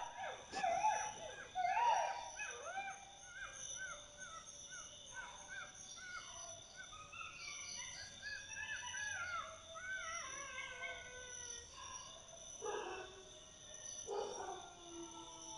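A chorus of canines yipping and howling: many short rising-and-falling calls overlapping, with two louder barking calls near the end, over a steady high drone.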